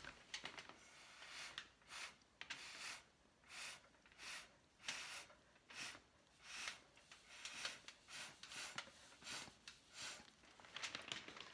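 Faint short puffs of breath blown through a drinking straw onto wet acrylic paint, coming about one to two a second as a string of brief hissy blasts. Each puff pushes the wet paint outward into lacy edges in the straw-blow pour technique.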